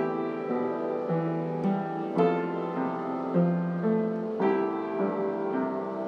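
Background piano music: a slow melody of sustained notes, a new note or chord struck roughly every half second to a second.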